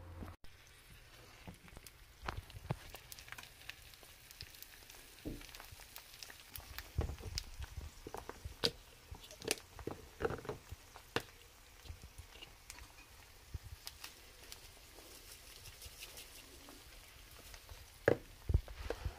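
Egg frying in oil in a nonstick pan: a sizzle with irregular crackles and pops of spitting fat, and two louder clicks near the end.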